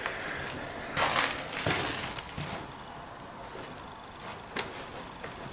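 Footsteps crunching and scuffing over debris on a concrete floor, loudest about a second in, then softer, with one sharp click near the end.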